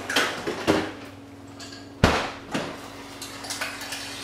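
Light clinks and knocks of a glass and ice being handled at an open fridge drawer. One sharp thump comes about two seconds in, with a softer knock just after, over a faint steady hum.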